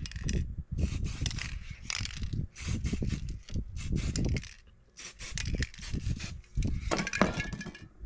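Aerosol spray-paint can hissing in a run of short bursts, with rubbing and knocks from handling the card mask held against the board.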